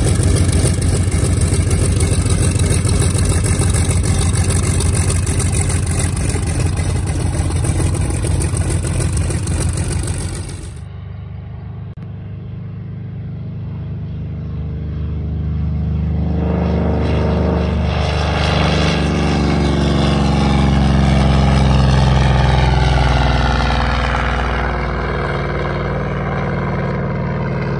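Grumman F6F Hellcat's Pratt & Whitney R-2800 radial engine running at low power close by as the fighter taxis, with propeller noise. After a sudden drop in level about eleven seconds in, it is heard from farther off, building to full power on the takeoff roll and climb-out, loudest about two-thirds through with a shifting pitch.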